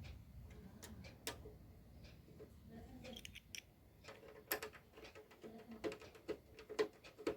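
Irregular light clicks and taps of small hard parts, coming more often in the second half.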